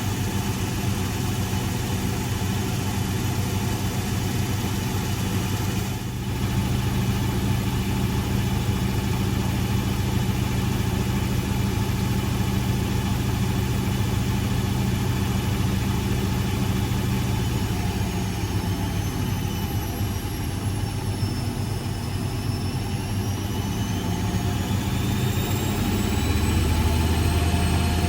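Blomberg 240W washing machine running, its motor and drum making a steady low hum. In the second half a faint high whine dips and then rises in pitch, and near the end the low hum grows louder.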